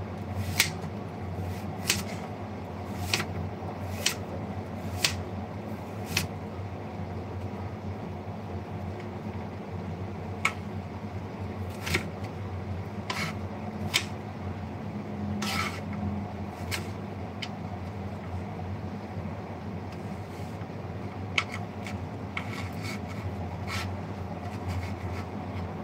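Sharp clicks and knocks of kitchen utensils and cookware being handled, about one a second at first and then more spread out, over a steady low hum.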